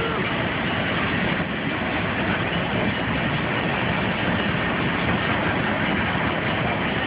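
Train rolling steadily past, a continuous loud noise of wagons running along the track.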